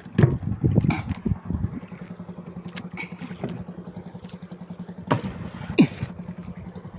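Small fishing boat's engine running steadily, with a burst of irregular low thuds and knocks in the first couple of seconds and two sharp knocks about five seconds in.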